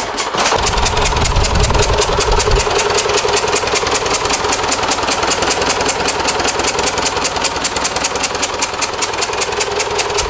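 Rebuilt turbocharged tractor diesel engine running steadily on an open stand with a fast, even pulsing beat, on its first start after the rebuild.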